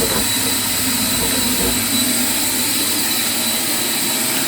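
A machine running steadily with a loud, even hiss, a thin high whine and a low rumble underneath.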